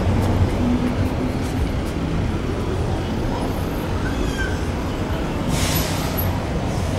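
Town-centre road traffic: cars and buses running slowly past with a steady low rumble, and a short hiss about five and a half seconds in.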